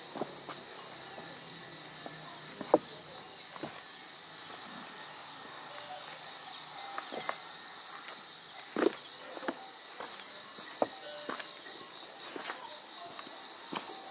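A steady, high-pitched insect trill, typical of crickets, runs unbroken, with irregular footsteps and scuffs on a stony path, the sharpest about three seconds and nine seconds in.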